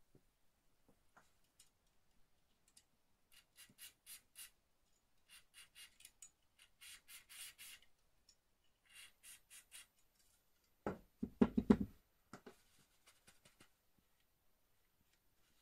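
An aerosol spray can with a straw nozzle giving a series of short hissing bursts into an airsoft rifle's metal cylinder, followed by tissue rubbing and handling of the cylinder, loudest in a cluster of rough rubbing thumps near the end.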